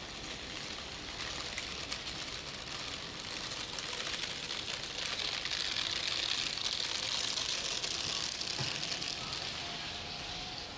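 Street traffic noise: a steady hiss that swells about halfway through, as if a vehicle passes, and then eases off again.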